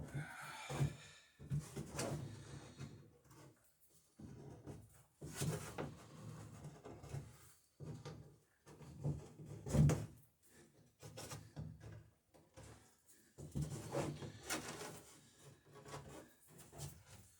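Irregular knocks, bumps and rustles of things being handled and moved about a small workshop, with a few louder thumps spread through.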